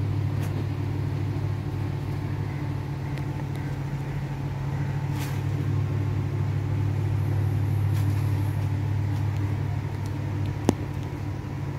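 Steady low mechanical hum, as of a fan or motor running, with one sharp click near the end.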